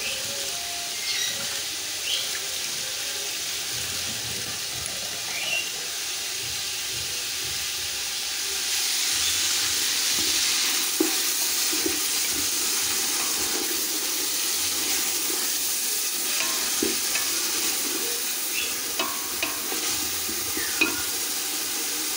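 Minced meat (keema) sizzling as it fries and browns in a pot, with a steady hiss that grows louder about nine seconds in. A wooden spatula stirs it, giving occasional short taps and scrapes against the pot.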